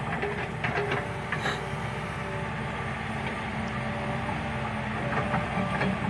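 Caterpillar hydraulic excavator's diesel engine running steadily while it digs out soil, with a few short sharp clanks.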